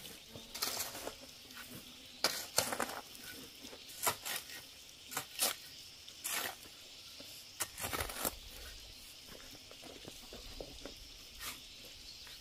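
Metal shovel scraping and scooping through a sand and cement mix on a concrete slab: a dozen or so short scrapes at uneven intervals, fewer near the end.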